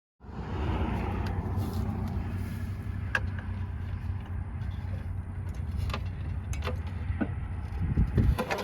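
Tractor engine running steadily with a low rumble, with several sharp metallic clicks through it and a couple of louder knocks near the end.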